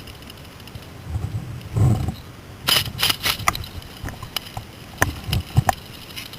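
A run of about a dozen sharp, irregular clicks and snaps over roughly three seconds, with a few low thuds among them.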